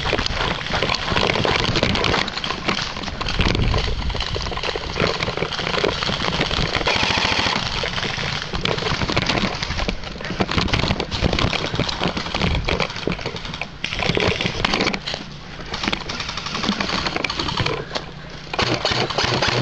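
Footsteps crunching through dry grass and dead leaves, with steady rustling and clatter from the player's gear as he moves.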